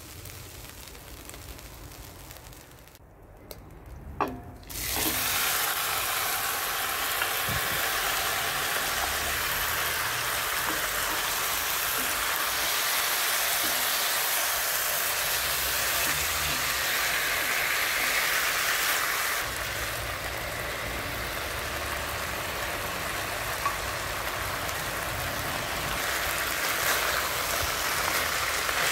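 Chicken pieces searing in a hot enamelled cast-iron pot. A faint sizzle at first is followed by a clunk about four seconds in, then a loud, steady sizzle as the pot fills with frying chicken, stirred with a wooden spatula.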